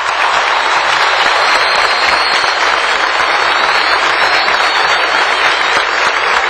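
Large crowd applauding steadily and loudly, with a few thin, wavering high whistles over it from about two seconds in.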